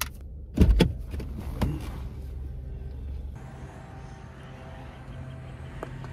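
A few loud knocks and thumps of handling inside a car over a low rumble, then a steady low hum with a couple of light clicks at the car's open rear hatch.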